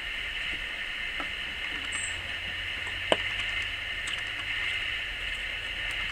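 A feed scoop being emptied into a hanging hopper feeder and drawn away, with a sharp knock about three seconds in, over a steady hiss.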